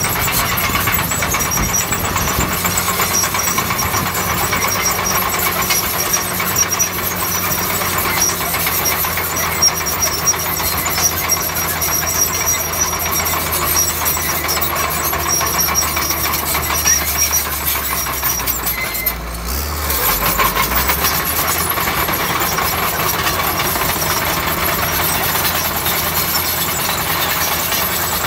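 Bulldozer's diesel engine running steadily at work. About two-thirds of the way through, the higher noise briefly dulls and a deep rumble swells for about a second before the steady running resumes.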